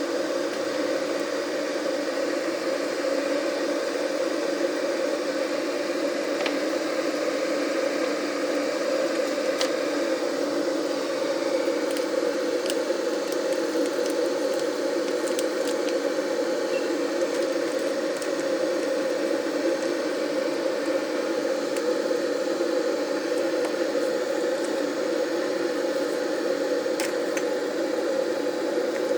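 A Tesco 3 kW rapid-boil electric kettle heating water, giving a steady rushing noise with faint scattered ticks as the water works towards the boil.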